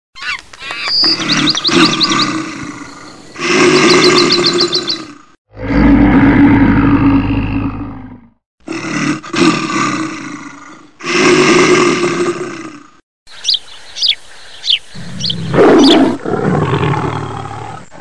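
Recorded animal roars and growls played over the loudspeakers of an animatronic animal exhibit, with quick high chirping calls mixed in. The sound comes in several loud stretches broken by short, abrupt silences.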